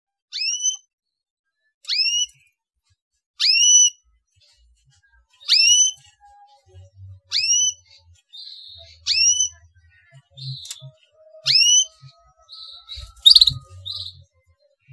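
Canary 'cuit' calls: a short, quickly rising whistled note repeated about every two seconds, seven times. Softer short chirps come in between during the second half.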